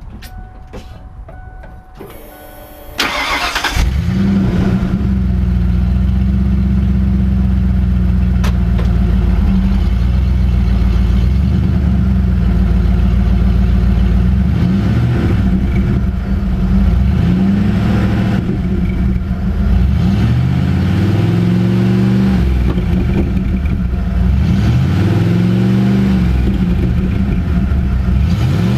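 1995 Ford F-150's 5.0 L 302 V8, heard at its exhaust, cranked by the starter for about two seconds, catching and settling into a loud idle. It is then revved several times, the pitch rising and falling with each blip.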